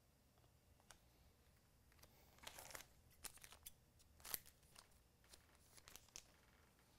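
Faint snips and crinkles of scissors cutting open a hockey card pack's wrapper, among light clicks of cards being handled; the loudest snip comes about four seconds in.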